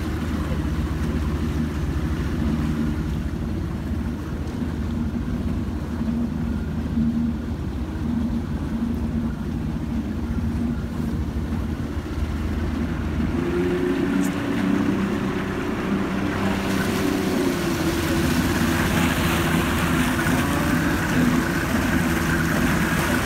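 Motorboat engine running steadily under way, with water rushing past the hull. A little past the middle the engine note shifts, and the rush of water and wind grows louder.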